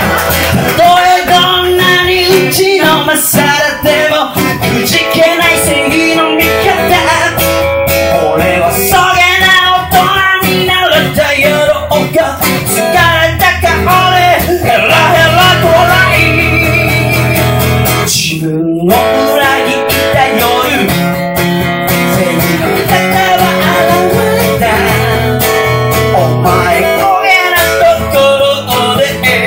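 Live acoustic guitar being strummed while a man sings along. The music drops out for a moment about two-thirds of the way through, then carries on.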